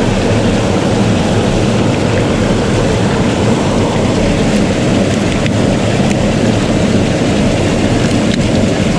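Loud, steady rush of turbulent white water pouring close by. A few faint clicks of a knife blade against concrete and oyster shell come through it about halfway and near the end.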